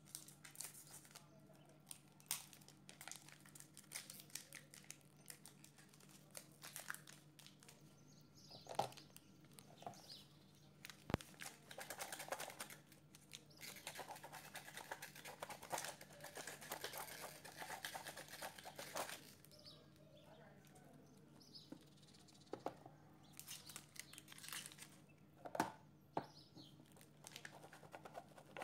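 Chocolate being grated on a metal box grater: quiet rasping scrapes, heaviest in a run of strokes around the middle, with scattered clicks and taps.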